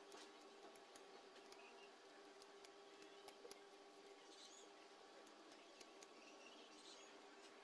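Faint, irregular small clicks and short scrapes of a knife blade shaving a thin strip of bamboo by hand, over a steady low hum.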